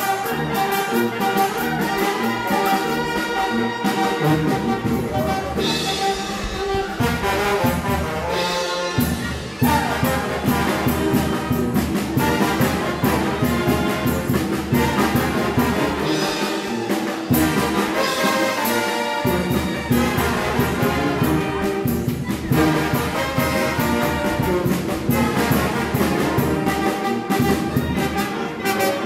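Brass band music, with trumpets and trombones playing the tune over a steady beat that grows fuller about nine seconds in.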